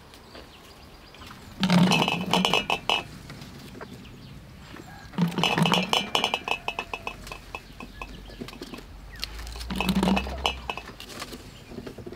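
Sliced nectarines dropped through a funnel into a large glass jar, clinking and clattering against the glass in three bursts a few seconds apart.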